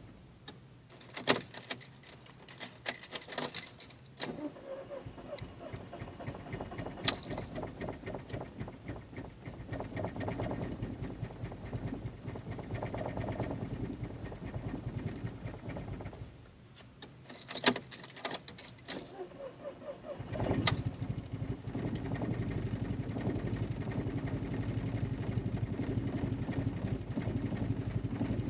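Key jangling in the ignition, then a 1.8-litre turbo four-cylinder (1.8T) cranking for a long stretch without staying running, which is the hard starting the owner is filming. After a pause and more key clicks, the engine catches about 20 seconds in and settles into a steady idle.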